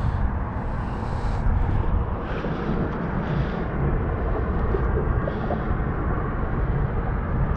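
Steady low outdoor rumble with a few faint soft rustles.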